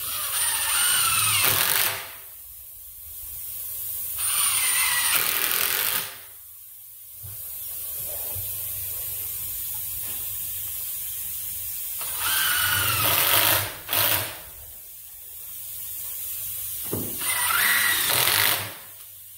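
Cordless driver running in four bursts of about two seconds each, driving screws down through a rough-sawn top board into the wooden posts.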